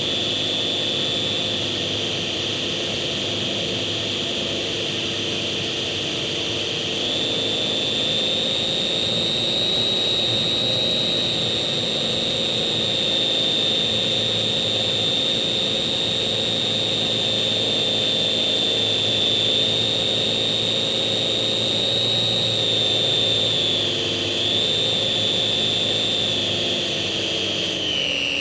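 A Slow Stick RC airplane's small electric motor and propeller running steadily with a high whine. The pitch steps up a little about seven seconds in, wavers near the end, then drops as the throttle is eased.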